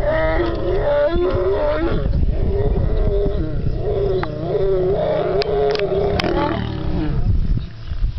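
Lions growling while mating: one long, wavering growl that lasts about seven seconds and breaks off near the end.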